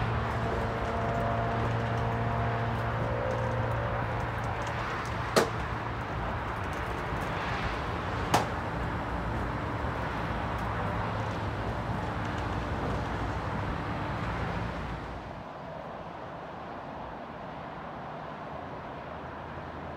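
Amtrak bilevel passenger cars rolling past on the rails, a steady rumble with two sharp clacks about three seconds apart. The sound drops off about three-quarters of the way through as the last car, a cab car, goes by and the train moves away.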